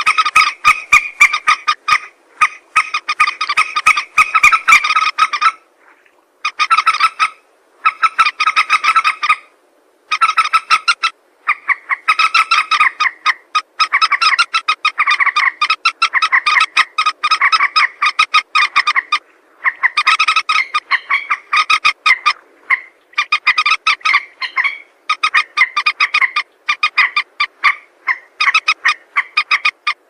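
Common moorhen calling: rapid runs of short, repeated pitched notes in bursts, breaking off for about a second around six seconds in and again near ten seconds in.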